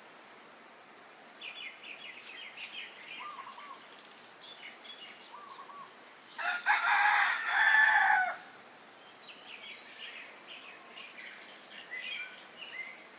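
A rooster crows once, loudly, for about two seconds near the middle. Small birds chirp and twitter before and after the crow.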